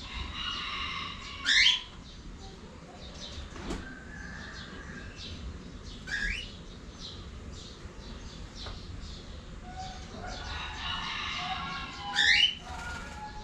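Cockatiels calling: three loud rising whistles, about a second and a half in, midway and near the end, over softer chattering warbles and short chirps.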